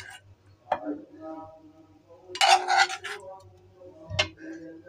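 A metal spoon knocking and scraping in a saucepan of honeyed prunes: a sharp clink a little under a second in, a longer scrape about halfway through, and another clink near the end.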